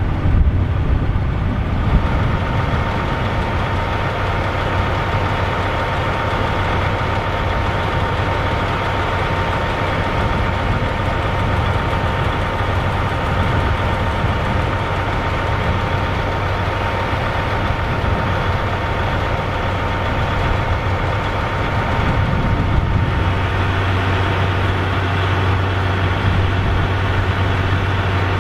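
John Deere 8600i forage harvester's engine running steadily with a deep hum and a thin, steady whine over it, while the machine sits bogged down in deep mud. About 23 seconds in the whine drops away and the low hum gets stronger.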